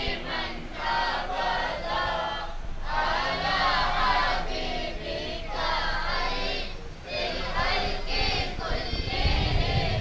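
A congregation singing a salawat in unison, many voices chanting together in praise of the Prophet Muhammad, answering the preacher's lead line.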